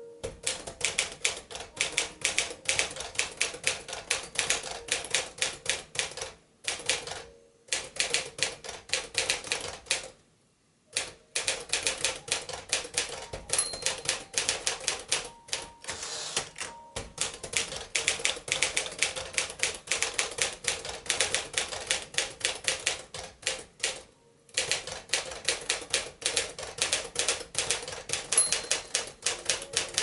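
A 1951 Smith-Corona Silent manual typewriter being typed on: quick runs of keystrokes broken by short pauses. The margin bell rings twice near the end of a line, and the carriage is thrown back with the return lever.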